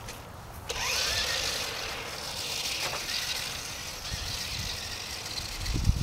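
Electric motor of a toy remote-control car starting about a second in with a rising whine, then running with a steady high buzz.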